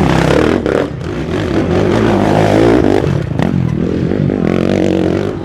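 Motocross dirt bike engine running and revving, its pitch rising and falling.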